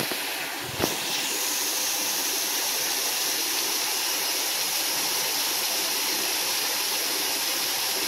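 Small garden waterfall splashing steadily into a pond, a continuous even rush of falling water. One brief knock sounds about a second in.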